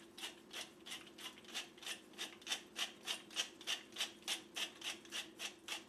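Hand-twisted pepper grinder turned over and over, a steady run of short grinding strokes about three a second. The grinder puts out little pepper per turn, so it is twisted many times.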